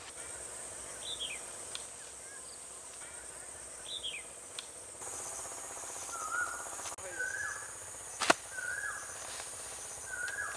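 Rural outdoor ambience: a steady high-pitched insect buzz with birds calling. There are two short falling chirps in the first half, then a call repeated four times about a second apart. A single sharp knock late on is the loudest sound.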